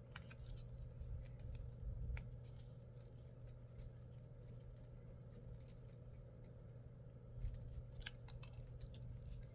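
Faint handling sounds of a cardboard lipstick box: scattered soft clicks and scrapes as a lipstick tube is worked out of its snug-fitting box, with a few clicks together near the end. A steady low hum lies beneath.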